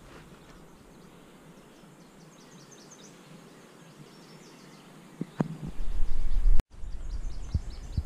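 Outdoor forest ambience with faint, rapid high chirping of insects. About five seconds in, wind buffets the microphone with a loud, uneven low rumble. The rumble breaks off sharply for an instant, then goes on more weakly before fading.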